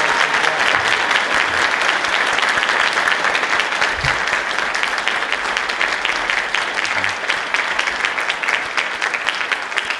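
An audience applauding: many hands clapping in a dense, continuous patter that eases slightly near the end.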